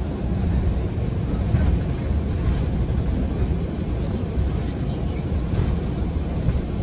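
City bus under way, heard from inside the cabin: a steady low rumble of engine and road noise.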